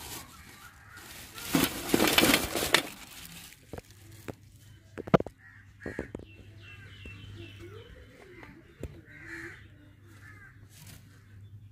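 A plastic bag rustles loudly as crabs are tipped out of it onto a steel plate, followed by a few sharp clicks and taps of the crabs against the metal. Crows caw several times in the background.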